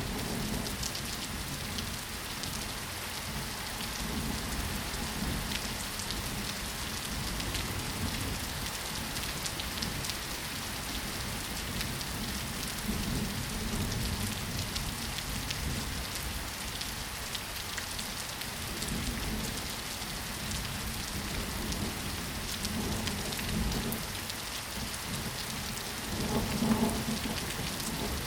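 Steady rainfall, with many separate drops ticking on surfaces, and a few low rumbles that swell and fade, the strongest near the end.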